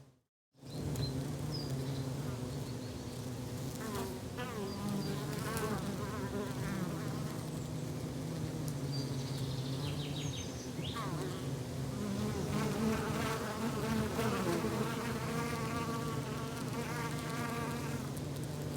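Buzzing flying insects: a steady low hum, with an insect buzzing close by and wavering up and down in pitch from about four seconds in. A few faint high chirps. The sound drops out completely for about half a second at the very start.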